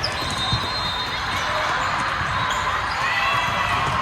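Gymnasium din during a volleyball match: a steady wash of crowd and court noise with sharp ball impacts, one right at the start and another about half a second in.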